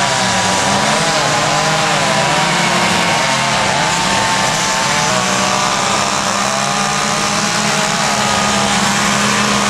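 Several petrol chainsaws running at once, their engines revving up and down over and over as they cut into wood during carving.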